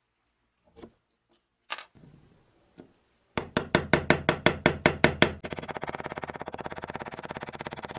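A few single knocks of the wooden spirit level being handled on the workbench, then a rapid, even run of sharp taps, about seven a second, that turns into a faster, denser rattle in the second half.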